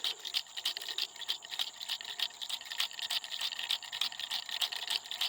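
Small, hard, dry objects shaken as a homemade rattle, a quick, irregular dry rattling that carries on steadily.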